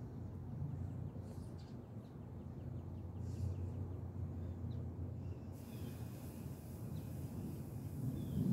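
Outdoor ambience: a steady low rumble, with a few faint bird chirps.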